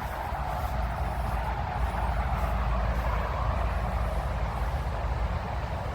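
Steady rush of road traffic, which the walker takes for a motorway, swelling slightly midway. Wind buffets the microphone as a flickering low rumble.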